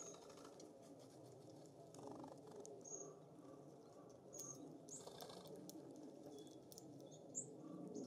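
Small songbirds at a seed feeder giving short, faint high chirps several times, with a fainter lower call repeating about twice a second from partway through and scattered light clicks, over a low steady breeze.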